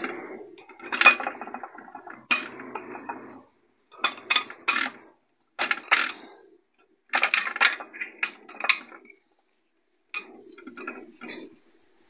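Easy-open sardine can being opened by its ring-pull: metallic clicks as the tab is lifted, then the thin tin lid scraping and tearing as it is peeled back. The clicks and scrapes come in several spells with short pauses, and there are clinks of the can against a ceramic plate.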